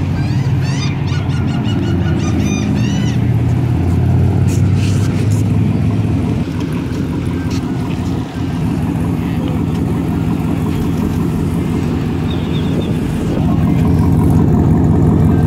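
Pickup truck engine idling through a dual exhaust with a deep, steady rumble, louder near the end as it is heard close to the tailpipes. A run of short, high squeaky calls sounds over it in the first few seconds.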